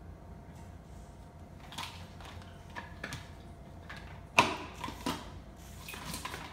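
Dog pushing a hard plastic ball toy about on a tile floor: scattered knocks and clatters, the loudest about four and a half seconds in, over a low steady hum.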